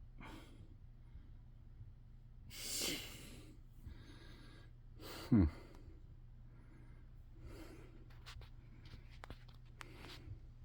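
Steady low hum of a running 52-inch Litex Ellington Deluxe ceiling fan, with a person's breath out about two and a half seconds in and a short sharp falling sound a little after five seconds. A few faint clicks come near the end.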